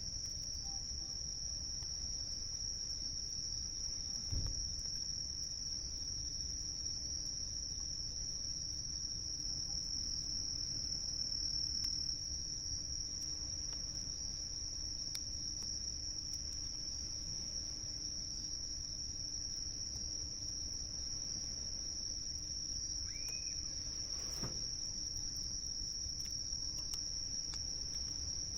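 Insects chirring in one steady, high-pitched drone that never breaks, over a low, even rumble.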